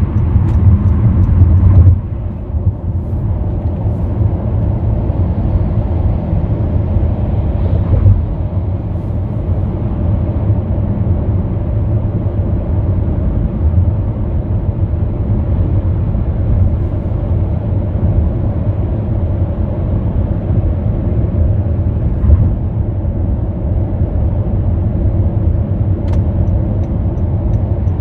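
Late-model first-generation Honda Vezel driving at highway speed, heard from inside the cabin: a steady low rumble of road and running noise, a little louder for about the first two seconds.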